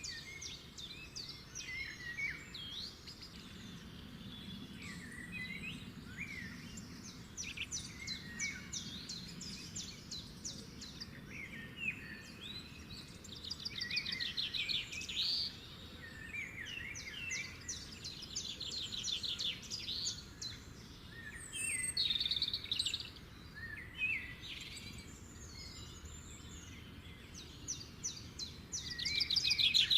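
Birds chirping and whistling, several calls overlapping, with bouts of rapid trills that grow louder now and then.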